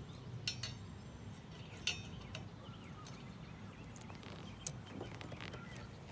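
Light clicks and knocks of a wiper blade and wiper arm being handled as the new blade is hooked onto the arm: a few scattered sharp clicks, the sharpest near five seconds in.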